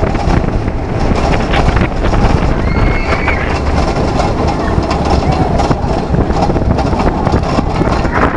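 Steel roller coaster train running at speed through its track, heard from on board: a loud, steady rumble with constant rattling. A brief high squeal comes about three seconds in.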